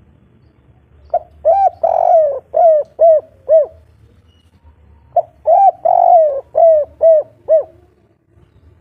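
Spotted dove cooing in the 'kuk 3' song type: two phrases a couple of seconds apart, each a brief opening note, a longer drawn coo, then three short evenly spaced coos.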